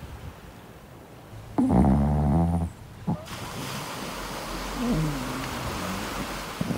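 Chihuahua puppy talking in its sleep: a drawn-out low grumbling moan about a second and a half in, then a short whimper that rises and falls a little after the middle.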